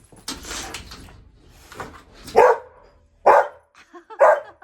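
A dog barking in single barks, three about a second apart in the second half, at a squirrel outside the window.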